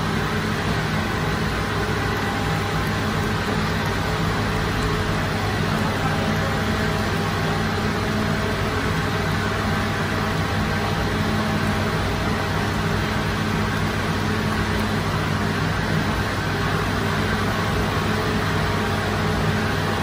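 Steady mechanical drone of bakery machinery, a constant low hum with a noisy wash over it that doesn't change.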